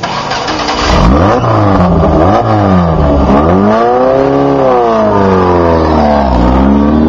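Off-road race buggy's engine revving hard as it pulls away from the pit stop, its pitch climbing, dipping, climbing again and falling several times.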